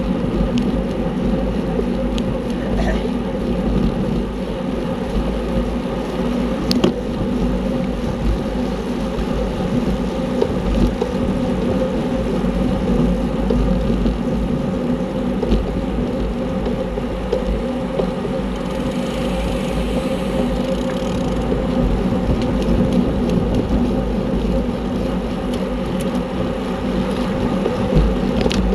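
Steady rush of wind and road noise from a racing bicycle ridden fast, with a sharp click about seven seconds in.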